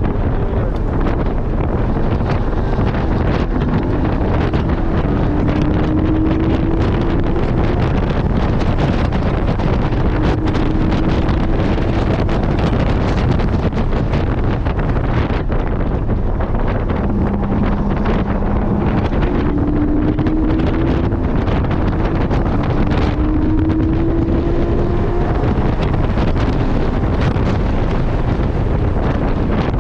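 Porsche 718 GT4's flat-six engine under hard driving at track speed, heard from inside the cabin, its note climbing several times under a heavy, steady roar of wind and road noise.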